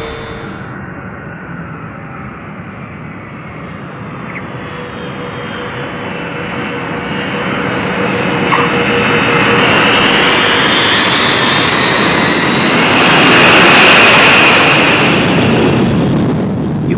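Boeing 720 jetliner's four jet engines at takeoff power on the takeoff roll. The engine noise swells as the plane accelerates toward and past, with a rising high whine, and is loudest about fourteen seconds in.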